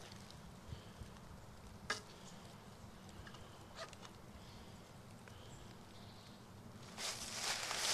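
Quiet handling of a recurve bow and arrow as the arrow is nocked: a few small clicks and ticks, one sharper click about two seconds in. About seven seconds in, a louder rustling noise starts.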